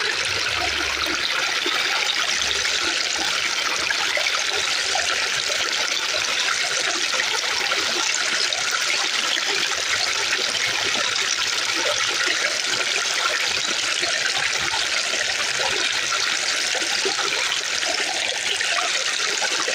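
Fountain water falling and splashing steadily, an even trickling rush.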